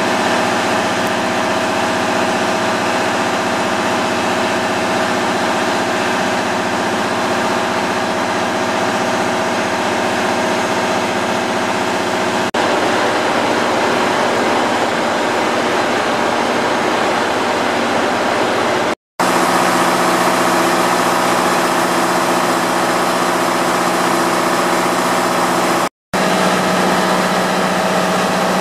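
JR Hokkaido KiHa 183 series diesel express train idling at a standstill: a steady engine hum with several level tones, broken by a couple of brief dropouts.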